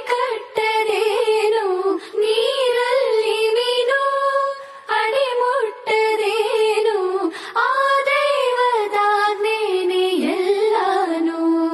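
A recorded Kannada devotional song to the goddess Sharada: a high voice sings long, wavering, drawn-out notes in phrases of a second or two, with no clear words.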